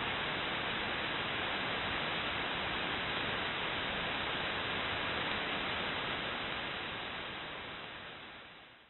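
Steady hiss of shortwave static from a KiwiSDR web receiver in upper-sideband mode, tuned to an HF channel with no voice on it, fading out over the last two seconds or so.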